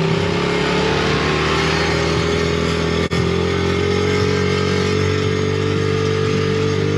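Pit bike engine running as the bike rides along, a steady note that climbs slowly in pitch, with a momentary break about three seconds in.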